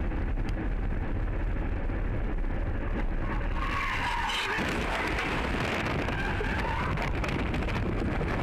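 Steady road noise inside a car. From about three and a half seconds in, a harsher, higher skidding noise joins it as the car's tyres slide off the highway into dirt, throwing up dust.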